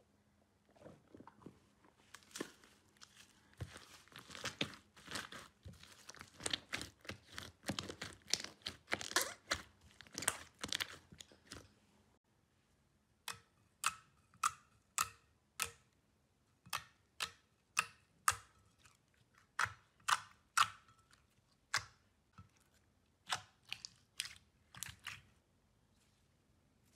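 Hands squishing and kneading foamy slime, a dense run of wet crackling squelches. After a short pause, clear glitter slime is pressed and pops sharply, about two pops a second for some twelve seconds.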